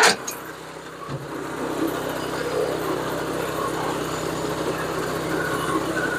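The 6.5 hp petrol engine of a Jansen FS35 flywheel log splitter running steadily, a steady engine hum that rises a little about a second in.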